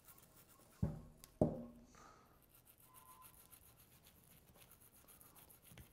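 Small cleaning brush scrubbing inside a revolver's steel frame: a faint bristle rubbing, with two knocks a little under a second in and half a second later.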